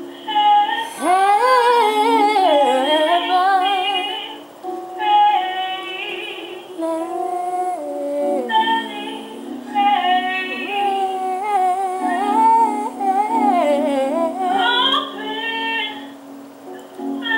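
Gospel singing: a woman's voice sings long, sliding vocal runs over steady sustained low chords.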